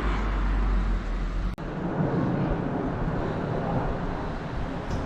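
Road traffic: a car's engine and tyres running steadily as it drives along the street. The sound drops out abruptly for an instant about a second and a half in, then resumes.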